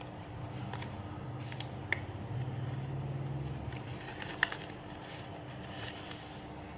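Origami paper handled and creased by hand: light crinkles and a couple of sharp paper ticks, about two seconds and four and a half seconds in. Under it runs a steady low hum that swells for about a second in the middle.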